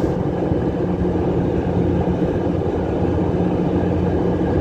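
Steady low drone of a ship's diesel machinery running, an even hum with no change in pitch.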